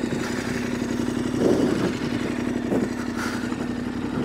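KTM 1290 Adventure's V-twin engine idling steadily, with a couple of brief clunks over it.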